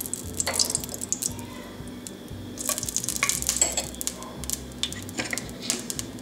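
Spoonfuls of pork lard being dropped into a heated glazed clay cazuela, the spoon clicking and scraping against the clay several times, with a light sizzle as the lard starts to melt.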